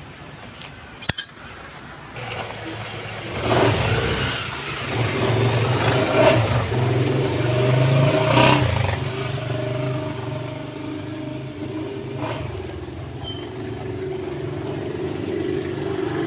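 A motor vehicle engine running steadily, a low hum that grows louder through the middle and then eases off, with a sharp click about a second in.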